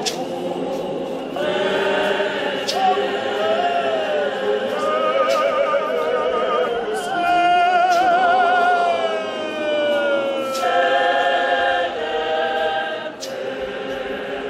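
A congregation choir of many voices singing a hymn together, some held notes wavering with strong vibrato.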